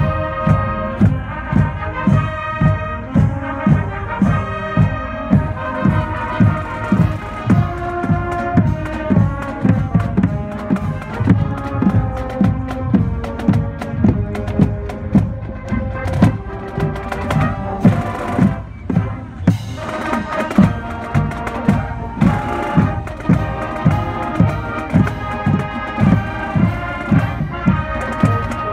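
High school marching band playing live: trumpets, trombones and sousaphones carry the melody over a steady bass-drum beat, with a brief break in the music about two-thirds of the way through.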